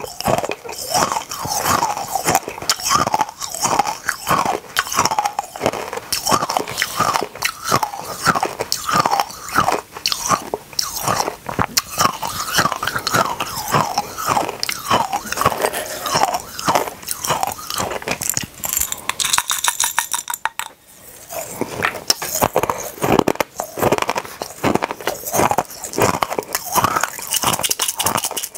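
Small mini candies being crunched and chewed close to the microphone in rapid, continuous bites, with a short pause about twenty seconds in.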